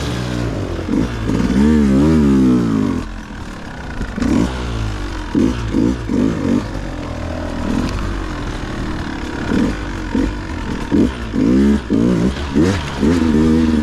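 Dirt bike engine working hard, its pitch rising and falling over and over with quick bursts of throttle over a steady low running note.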